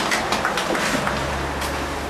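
Scattered clapping from an outdoor crowd, thinning out to a few separate claps, over a steady low rumble.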